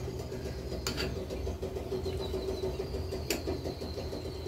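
A metal spoon clinks twice against a glass bowl of thick ground chutney as it is stirred, the two clicks a little over two seconds apart, over a steady mechanical hum.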